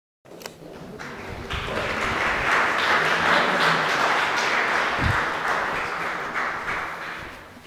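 Audience applauding after a performance, the clapping swelling over the first couple of seconds and fading away near the end.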